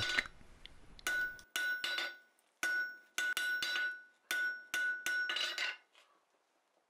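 Blacksmith's hammer striking a red-hot bar on the edge of an anvil, about ten blows in small groups over some five seconds, each with a bright metallic ring that carries between blows. The blows set the bar down to form one side of a corner.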